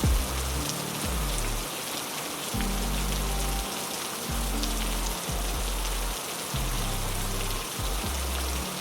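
Heavy rain falling steadily, an even hiss with scattered drop ticks, over low sustained notes that change about every second.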